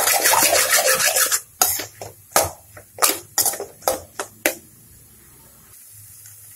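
A metal spoon scraping and scraping along the inside of a metal kadai while stir-frying scrambled egg with cauliflower. The scraping is continuous for about a second and a half, then breaks into a string of separate strokes, and stops about four and a half seconds in.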